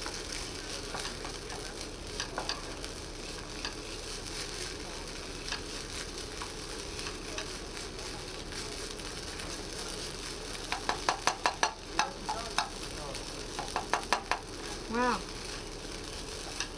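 A hash brown frying in a frying pan on a camping stove, with a wooden spatula scraping and stirring it against the pan. About two-thirds of the way through comes a run of quick, sharp taps of the spatula on the pan.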